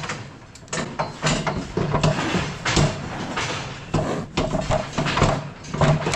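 Galvanised steel cattle crush clanking and rattling in a string of irregular metal knocks, some ringing briefly, as a calf shifts inside it with its head through the front.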